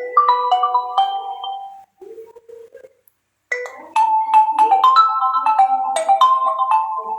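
Realme C21Y phone alarm tones: a melody of short ringing notes fades out about two seconds in, and after a brief silence a different melody of ringing notes starts about three and a half seconds in.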